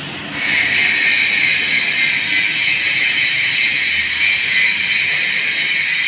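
A power tool grinding steel tubing, a steady, loud, high-pitched metallic screech that starts about half a second in and holds without a break.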